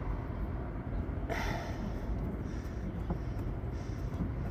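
A short, sharp exhale through the nose about a second in, with a few fainter breaths and light clicks, over a steady low outdoor rumble.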